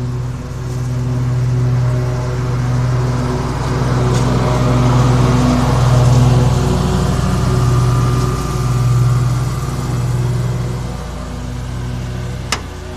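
A lawn mower engine running steadily, its drone swelling and fading every couple of seconds as it moves. One sharp click near the end.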